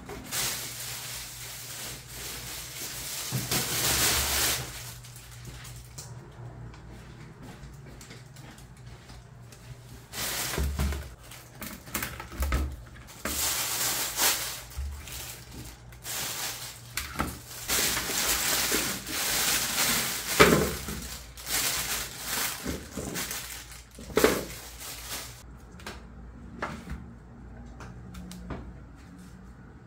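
Thin plastic bags rustling and crinkling in irregular bursts as fruit is pulled out of them, with a few dull knocks of fruit and trays set down on a table.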